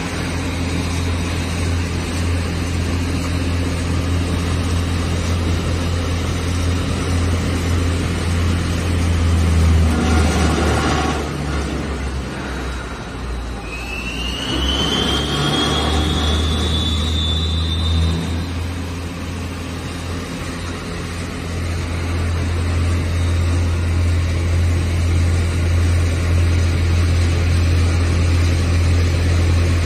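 ALCK6150 CNC lathe running under test, with a steady low motor hum. About halfway through, a whine rises in pitch for a few seconds.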